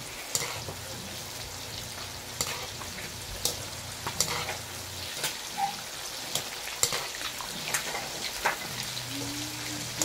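Chicken intestine pieces deep-frying in hot oil in a wok: a steady sizzle with scattered sharp pops and crackles, stirred with a wire spider strainer.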